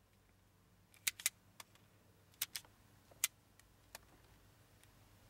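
Automatic wire stripper clicking as it grips and strips the ends of several thin power wires: a run of about seven sharp clicks, some in quick pairs, from about a second in to about four seconds in.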